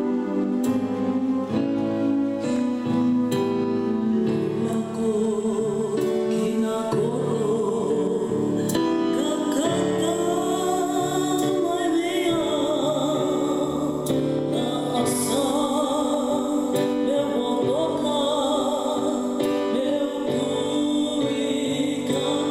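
Slow gospel song: sustained instrumental chords with a singing voice over them, the voice coming in about four seconds in and holding long, wavering notes.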